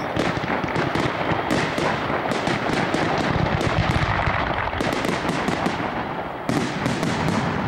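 Fireworks display: many shells bursting overhead in quick succession, a dense, unbroken run of overlapping bangs and crackles.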